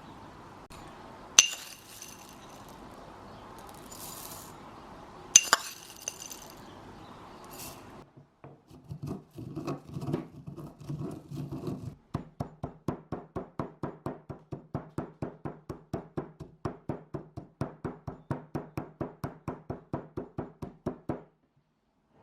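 Two sharp clinks, then a steady rhythmic knocking at about four strokes a second that stops suddenly near the end.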